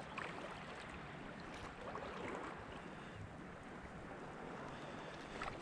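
Faint, steady wash of shallow seawater with light wind on the microphone, and no distinct events.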